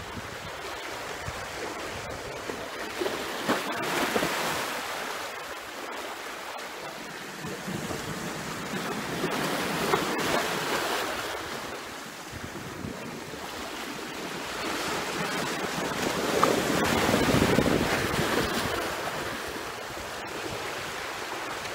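Seawater rushing and splashing over a concrete ledge at the mouth of a breakwater channel, swelling up in surges about every six or seven seconds as waves push through.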